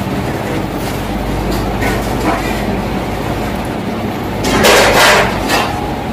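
Steady background noise with a low hum, and a brief louder burst of noise about four and a half seconds in.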